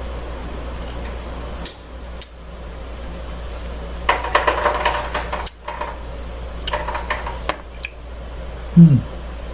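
Kitchenware being handled: a few sharp clicks and two stretches of clattering and scraping of a knife and plate, over a steady low hum. Near the end comes a short, loud, low sound that falls in pitch.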